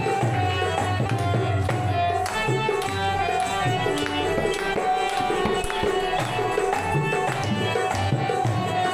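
Devotional bhajan music: tabla playing a steady rhythm under held melodic notes.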